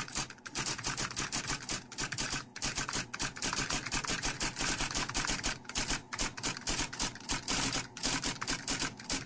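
Typewriter keys clattering in a fast, uneven run of sharp clicks: a typing sound effect for text being typed out on screen.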